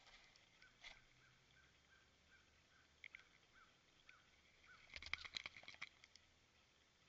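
Faint calling from a small animal: a run of short, falling chirps, about three a second. Then, about five seconds in, a brief burst of scratching and rustling clicks.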